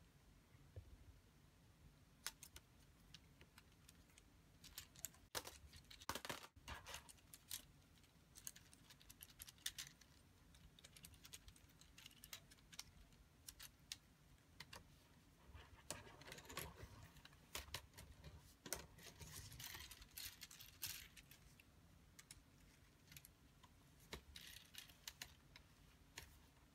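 Faint clicks and rattles of plastic Lego Technic parts as the built helicopter model is handled and turned over in the hands, scattered with a few busier flurries.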